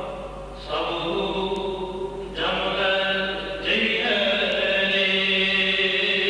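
A man chanting in a few long, drawn-out notes, each held steady for one to two seconds or more, with short breaths between them.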